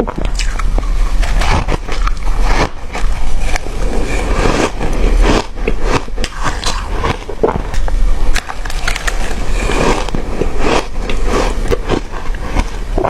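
Close-up crunching of hard ice being bitten and chewed, a dense, irregular run of sharp cracks and crunches.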